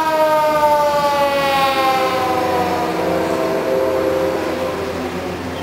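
A mechanical fire siren winding down, its pitch falling slowly and steadily. A second, steadier tone joins about two seconds in.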